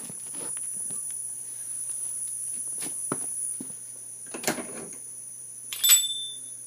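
Knocks and scrapes of a camera being handled and set down on a concrete floor, then a shuffling step and a sharp metallic clink with a brief ring about six seconds in. A steady high-pitched whine runs underneath.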